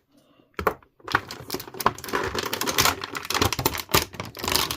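Dense clicking and rustling of plastic packaging as an action figure is handled and worked free of its plastic clips and tray, starting about a second in after a brief quiet.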